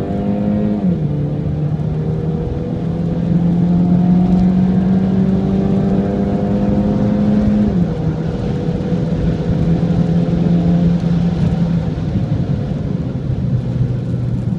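Mini Cooper S with an automatic gearbox accelerating hard, heard from inside the cabin. The engine note climbs steadily and drops sharply twice as the gearbox shifts up, about a second in and again about eight seconds in, then falls away near the end as the car slows.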